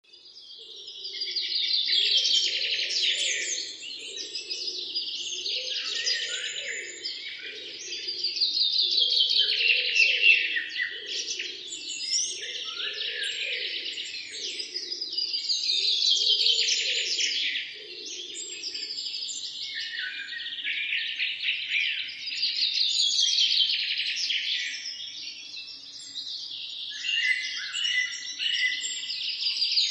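A morning chorus of many small birds chirping and singing together. It fades in from silence at the start and swells and eases about every six or seven seconds. A fainter, lower pulsing sound runs beneath it through the first half.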